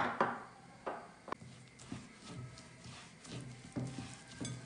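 A hand mixing a semolina, oil, powdered sugar and egg white mixture in a glass bowl. It makes irregular soft squishing and grainy rustling, with light clicks of fingers against the glass.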